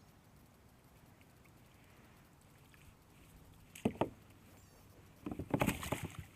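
Two knocks about four seconds in, then a second-long rattling clatter of knocks on a plastic kayak as the landing net with a just-netted flathead is handled aboard.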